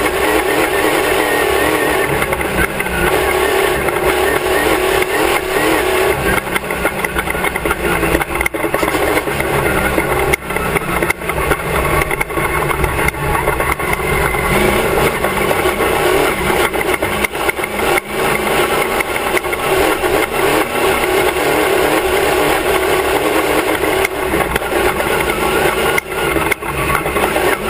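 Class 1 off-road race car's engine running hard at racing speed, heard from a camera on the back of the car, with frequent short knocks and rattles throughout.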